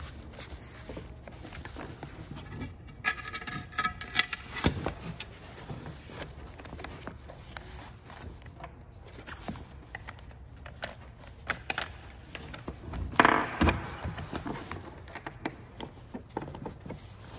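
Handling noise from assembling a scuba backplate harness: nylon padding and webbing rustling and scraping, with scattered clicks and light knocks of small parts. Louder scraping rustles come around three to four seconds in and again, loudest, about thirteen seconds in.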